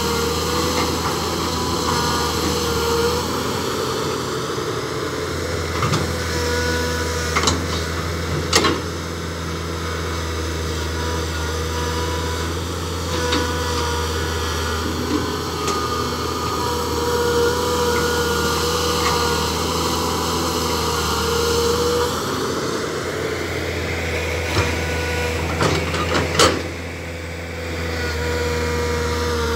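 Hydraulic excavator's diesel engine running steadily, its note rising about two-thirds of the way through as it works under load. A few sharp knocks from the bucket and boom come early on and again near the end.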